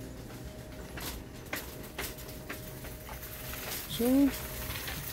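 Soft footsteps about twice a second over a steady faint hum, and about four seconds in a short voice sound that rises and then falls in pitch.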